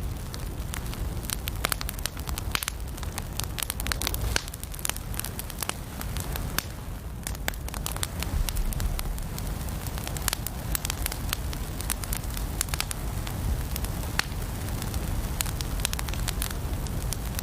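Wood fire burning in a fireplace: a steady low rumble of flame with frequent sharp, irregular crackles and pops.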